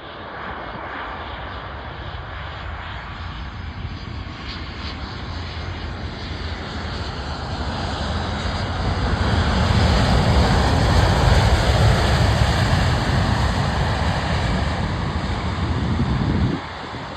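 Airbus A319-100 jet airliner's engines, a steady rushing jet noise growing steadily louder as the aircraft comes closer, loudest about two-thirds of the way through, then cutting off suddenly near the end.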